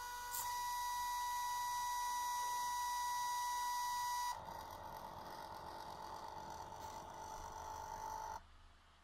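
Stepper motors salvaged from DVD drives whining as they move the pen of a small CNC drawing machine, a steady tone that changes pitch with each change of move, twice, then stops shortly before the end.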